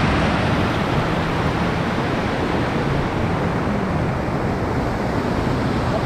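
Waterfall's steady, loud rush of falling water, an even noise with no break.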